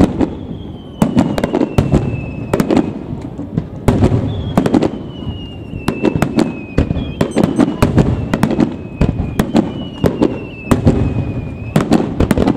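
Aerial fireworks shells bursting in quick succession: sharp cracks with a low rumble between them. A high whistle that slides down in pitch recurs every few seconds, lasting about two seconds each time.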